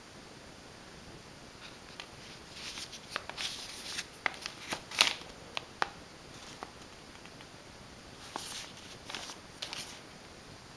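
Paper and packaging being handled: bursts of rustling with a few sharp light clicks and taps, in two spells, the first from about two seconds in and the second near the end.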